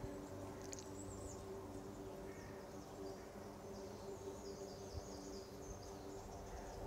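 Quiet outdoor garden ambience: faint, high-pitched chirping that repeats in the middle and later part, over a low steady hum, with one small tick about five seconds in.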